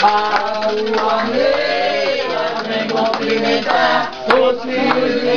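Several voices singing an Umbanda ritual chant (ponto), one note held long from about four seconds in, with occasional sharp knocks.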